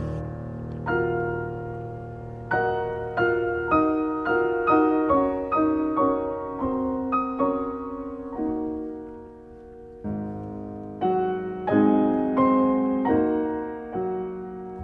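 Soft piano music: a slow melody of single struck notes over chords, each note ringing and fading. Midway a chord is left to die away before the playing picks up again.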